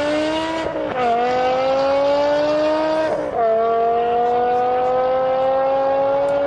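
BMW M5 E60's 5.0-litre V10 accelerating hard as the car pulls away. Its note climbs steadily and drops with an upshift about a second in and again just after three seconds in.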